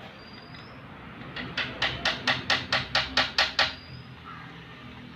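Hand ratchet wrench clicking as it runs down the 18 mm nut on a strut's top mount. About eleven sharp, even clicks at four or five a second, starting about a second and a half in.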